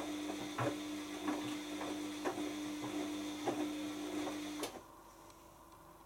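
Bosch Maxx 6 washing machine tumbling a wet wash load: a steady motor hum with irregular thuds of laundry dropping in the drum. It cuts off suddenly a little before the end as the drum stops.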